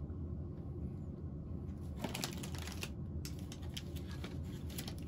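Plastic trading-card pack wrappers being handled, crinkling with light clicks in a cluster about two seconds in and again from about three seconds to near the end, over a steady low hum.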